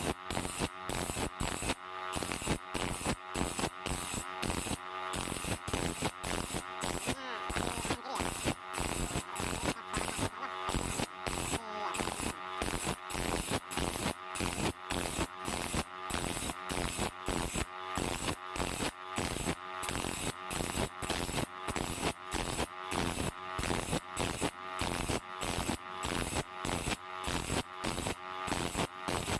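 Hand file rasping across saw-blade teeth in quick, even strokes, about two and a half a second: manual sharpening of the saw's teeth.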